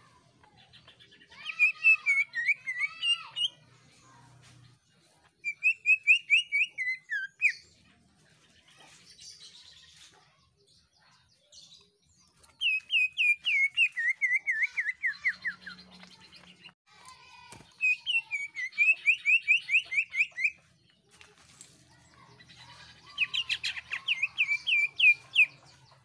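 Cucak ijo (green leafbird) singing in five loud bursts of rapid, sliding chirps, each lasting one to three seconds, with short pauses between them.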